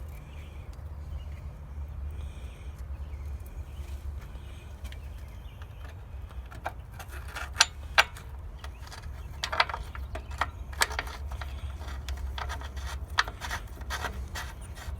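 Small metal parts clicking, clinking and scraping as fittings are handled and threaded onto a car radiator by hand. The clicks are scattered through the second half, two sharp ones loudest, over a steady low rumble.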